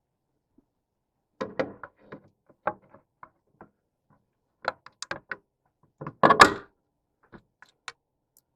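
Scattered knocks and clatters of hand tools and hardware being handled on a boat during dock-light work, in short irregular clusters, the loudest a little after six seconds in.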